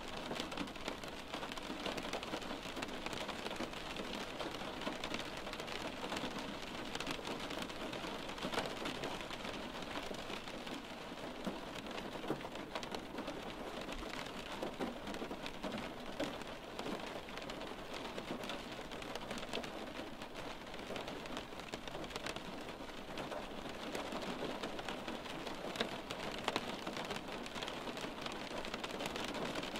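Steady rain on window glass: an even hiss of rainfall with many small raindrops tapping against the pane.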